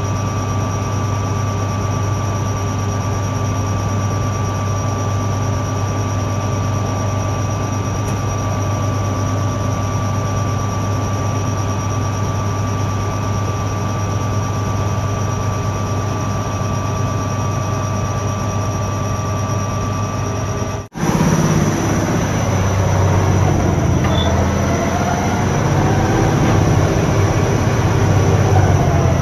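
Wirtgen 240i soil stabilizer's diesel engine running steadily, with a steady high whine over its hum. About two-thirds of the way through, after a cut, the sound turns rougher and uneven as the toothed milling rotor under the machine turns.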